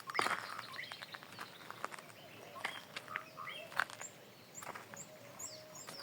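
Small birds chirping: short, high notes that slide downward, repeating about twice a second in the second half. A few sharp clicks or knocks come through, the loudest about four seconds in.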